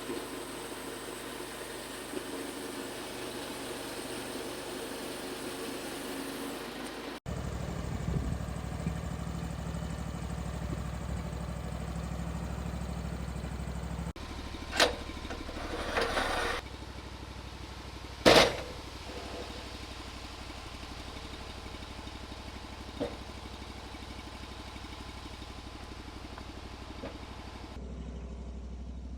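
Small engine running steadily, heard in several cut-together stretches, with a few sharp knocks near the middle, the loudest about 15 and 18 seconds in.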